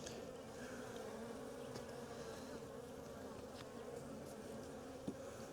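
Honey bees buzzing around an opened hive, a steady hum, with one light click near the end.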